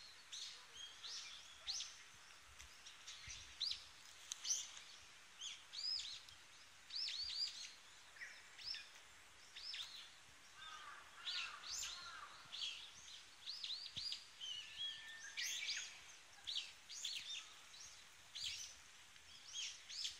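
Small songbirds chirping busily. Many short, quick, high calls come one on top of another throughout, and a lower warbling phrase sounds about eleven seconds in.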